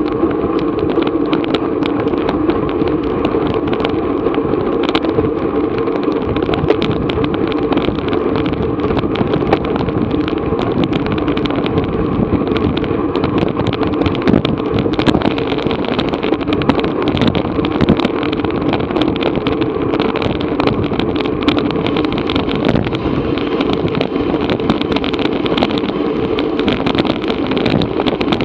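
Steady wind rushing over an action camera's microphone on a racing bicycle at speed, with many small rattles and clicks from the bike.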